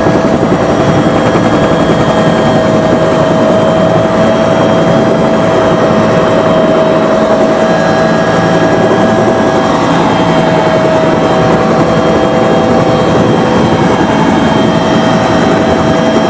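Bell 212 helicopter's twin turbine engines and rotor heard from inside the cabin: a steady, loud wash of noise with a constant high turbine whine.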